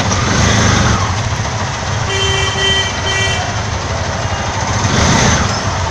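Vehicle engine running with road noise, heard from inside an auto-rickshaw's cabin. A horn beeps three times in quick succession about two seconds in.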